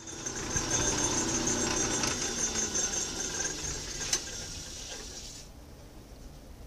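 Metal lathe running with a cast iron hand wheel spinning in the chuck as the tool cuts a 30-degree chamfer on its rim: a steady running sound with a high whine. A sharp click just after four seconds, then the lathe winds down and the sound drops away.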